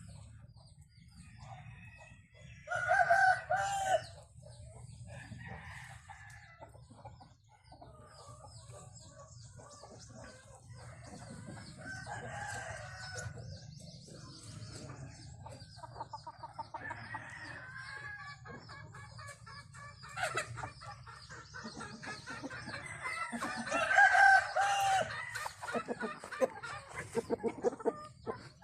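Backyard chickens clucking, with a rooster crowing twice, once about three seconds in and again near the end, loudest of all. Faint high peeping of young birds runs throughout.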